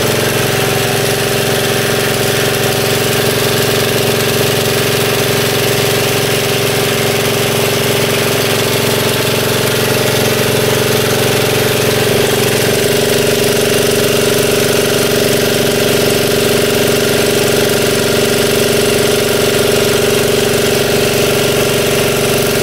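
Diesel engine of a high-pressure washer running steadily, its note shifting slightly about twelve seconds in.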